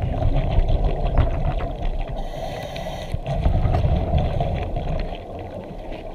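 River current pushing against a GoPro camera in its underwater housing as it rests on the riverbed: a steady low rushing rumble with scattered light clicks as the housing shifts, and a brief hiss a little after two seconds in.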